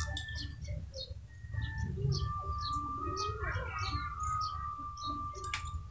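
Small birds chirping in a quick, even series of short high chirps, about two or three a second, over a steady thin high tone.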